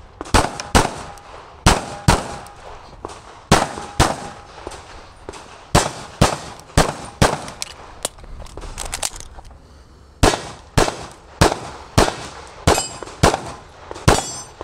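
Pistol shots fired on a timed practical-shooting stage: about twenty sharp shots, mostly in quick pairs, with a pause of about two seconds near the middle before the shooting starts again.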